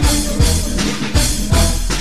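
Loud dance music with a steady, heavy kick-drum beat and strong bass, played through a vehicle-mounted sound system's large loudspeaker boxes.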